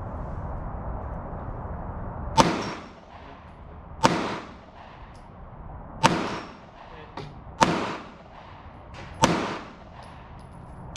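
Five shots from a semi-automatic concealed-carry pistol, fired one at a time about a second and a half to two seconds apart, each with a short echo tail. Only two of the five hit the steel target; the shots are landing low.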